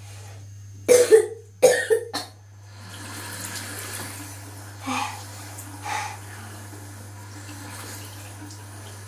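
A person coughing hard a few times about a second in, a throat irritated by dry ground cinnamon taken in the cinnamon challenge. A steady hiss follows for several seconds.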